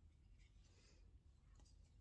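Faint scraping of a knife blade shaving wood by hand, two short strokes: one about half a second in and another near the end.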